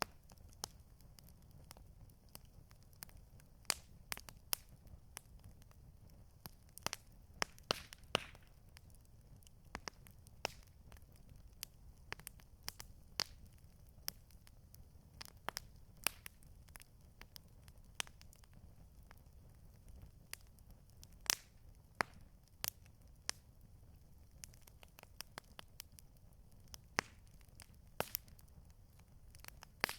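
Campfire crackling: irregular sharp pops and snaps, several a second, over a steady low rumble.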